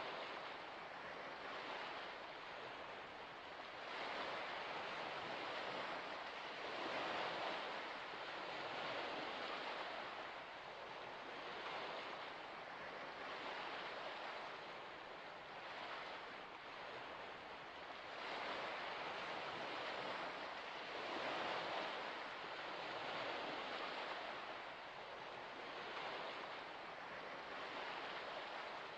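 Small waves of a shallow salt lake lapping at its shore: a steady rushing wash that swells and eases every few seconds.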